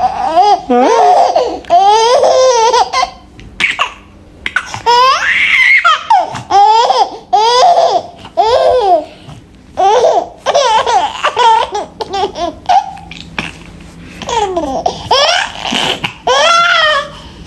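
A young child laughing loudly in repeated high-pitched bursts.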